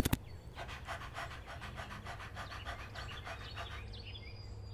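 Quick, breathy dog-style panting, faint and rhythmic at about four or five pants a second, voiced for a puppet dog; it fades out near the end.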